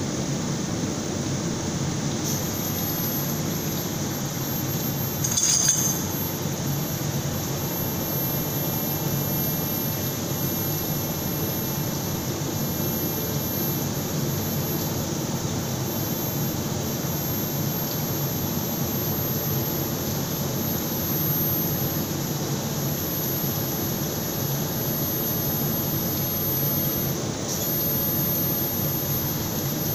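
Induction rotor-brazing machine running with a steady hum, while its coil heats a copper submersible-motor rotor's end ring. A thin, very high-pitched whine sets in about two seconds in and holds steady. A single metallic clink comes about five seconds in.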